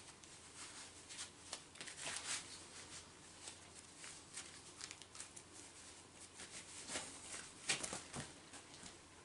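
Faint rustling and scattered light clicks of things being handled by hand, with a few louder rustles about two seconds in and again near the end.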